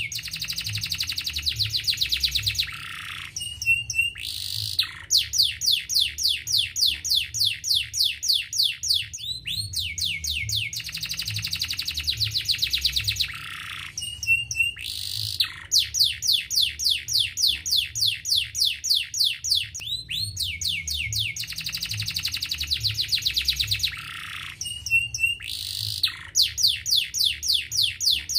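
Domestic canary singing a fast rolling song: long trills of rapidly repeated high notes, broken by short buzzy phrases and a few sweeping notes. The same sequence of trills comes round again about every ten seconds.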